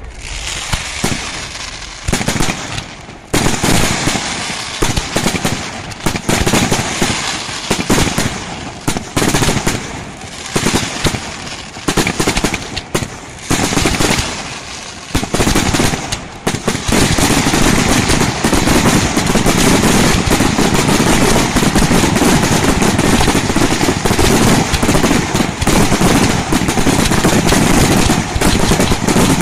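Aerial fireworks going off in quick volleys of bangs and crackle, separate reports with short gaps at first, merging about halfway through into a continuous dense barrage.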